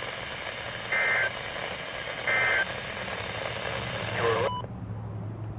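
Emergency Alert System end-of-message (SAME) data bursts: two short warbling digital tone bursts about a second and a half apart, the last of the three, over steady radio hiss and a low hum. About four seconds in a short falling tone sounds, and the radio hiss then cuts off suddenly, leaving only the hum.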